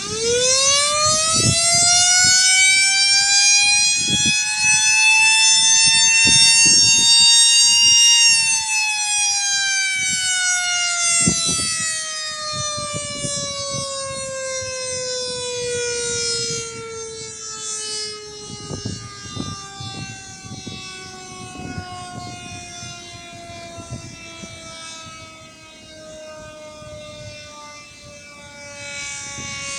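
Federal Signal C5LB 12-volt electromechanical siren winding up very quickly from switch-on to a high wail over about eight seconds. It is then cut and winds down in a long, slowly falling tone.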